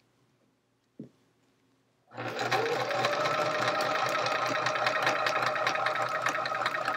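Sewing machine starting up about two seconds in, its motor whine rising briefly, then stitching at a steady speed while quilt pieces are chain-pieced. A single small click comes just before it starts.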